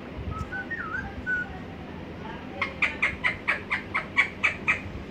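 Pet parrot calling: a few soft gliding whistled notes, then from about two and a half seconds in a fast run of about ten short repeated calls, roughly five a second.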